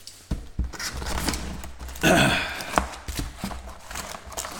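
Sports-card packs and cards being handled: scattered taps and clicks with rustling, and a brief louder rustle about two seconds in.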